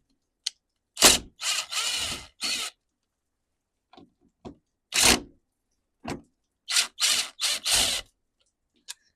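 Power drill/driver run in a series of short bursts, backing out screws from an old McCulloch chainsaw's housing.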